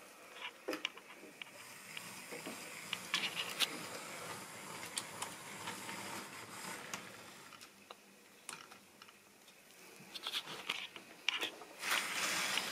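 Model train running on sectional track: a rushing hiss dotted with irregular clicks that swells, fades about halfway, and swells again near the end.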